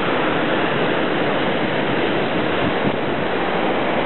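Loud, steady rush of whitewater churning through a river rapid.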